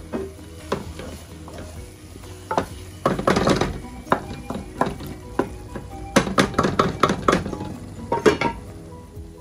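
Wooden spoon stirring and scraping minced meat around an aluminium pot, with the meat sizzling. The stirring comes in bursts of scrapes and knocks, about three seconds in and again from about six to seven and a half seconds.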